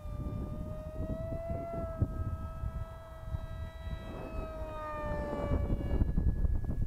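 Electric motor of a foam radio-controlled MiG-35B jet model whining steadily in flight, its pitch dipping slightly about five seconds in, with gusty wind rumbling on the microphone.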